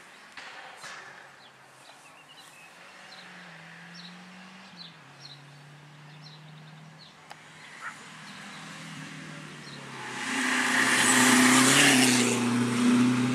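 Renault 5 rally car approaching from a distance, its engine faint at first and stepping up and down in pitch, then passing close and loud in the last few seconds with engine and tyre noise. Faint bird chirps in the first seconds.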